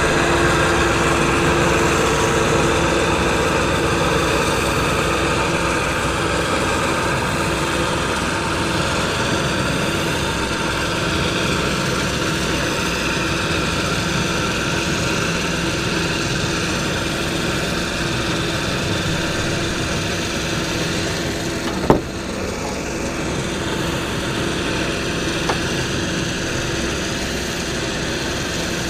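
Electric 12-volt truck-bed winch running steadily, its motor whining as it pays out cable under power from the hand remote. A single sharp knock comes about three-quarters of the way through.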